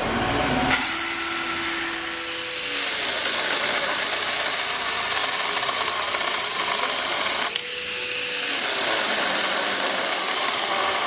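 21V cordless electric pruning saw running and cutting through wood. The motor's hum rises in pitch about two and a half seconds in, then a steady rasping cutting noise takes over, with the motor dipping briefly about three-quarters of the way through.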